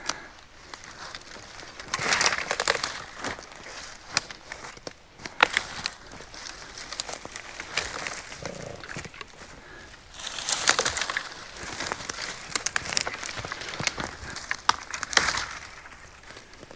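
Footsteps through forest brush and dry leaves, with twigs crackling and snapping underfoot, in uneven bursts that are loudest about two seconds in, ten seconds in and near the end.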